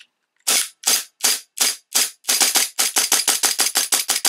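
Tokyo Marui Glock 17 gas blowback airsoft pistol, fitted with an RWA Agency Arms slide kit, cycling in a rapid string of sharp cracks. The string starts slow, about two to three a second, then picks up speed to about seven a second. It runs on a stock hammer spring with no tune-up work, and the slide cycles a little slow.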